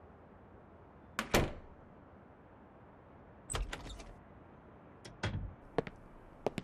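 Scattered short knocks and clicks: two knocks about a second in, a small clatter of clicks in the middle, then light, sharp ticks near the end from fingers tapping a tablet computer in its stand.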